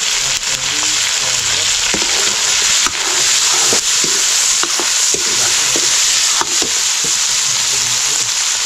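Food sizzling loudly in a hot pan while it is stirred for a noodle dish. The stirring utensil knocks sharply against the pan a number of times.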